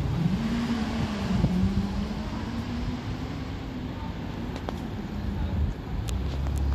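BMW M2's engine pulling away at low speed: its note rises in the first half-second, then holds fairly steady as the car turns across the street, over the noise of tyres on cobbles. A few faint sharp clicks come near the end.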